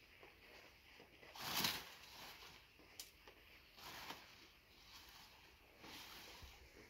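Faint rustling of a plastic strip being pulled and wrapped around a banana plant's stem, with a short louder rustle about one and a half seconds in and softer ones around four and six seconds.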